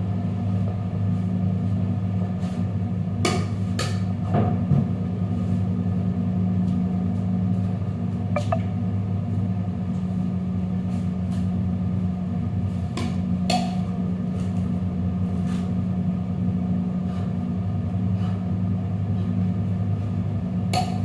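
Steady low electrical hum, unchanging in pitch and level, with a few light clicks and taps scattered through it.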